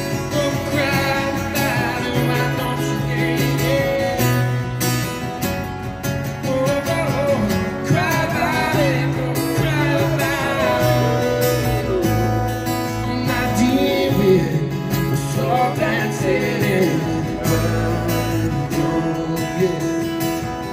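Acoustic guitar played live: a slow instrumental passage with a melody of bending, sliding notes over a repeating low bass figure.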